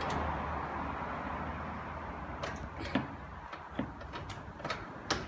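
Car workshop sounds: a steady background hum, then from about halfway a scattered series of sharp clicks and knocks from work on the car.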